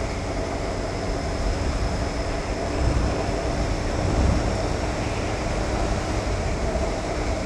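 Motorcycle cruising steadily, heard from the rider's helmet camera: wind rush over the microphone with a steady engine note underneath.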